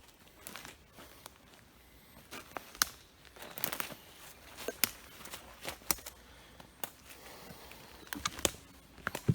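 Footsteps crunching on loose, stony ground, about one sharp step a second.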